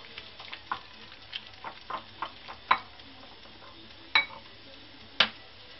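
Silicone spatula scraping soft mashed aubergine into a ceramic bowl: a run of small, wet scrapes and clicks. Two sharper taps on the bowl come about four and five seconds in, the first with a brief ring.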